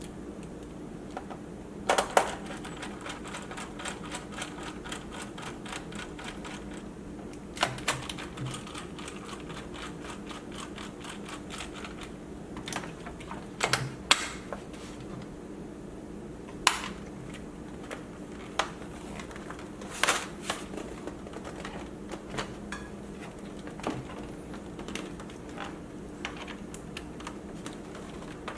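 Hands working on a laptop: sharp clicks and taps of small hard parts, with runs of rapid fine ticking, over a steady low hum.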